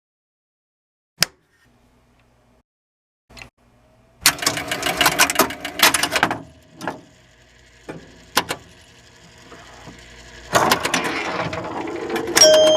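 Electromechanical pinball machine mechanisms clicking and ratcheting: a single click, then rapid bursts of relay and stepper clatter, and a louder run of mechanical rattling about ten seconds in.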